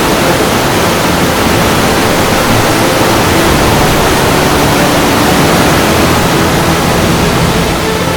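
Steady roar of a waterfall: an even, loud rush of falling water.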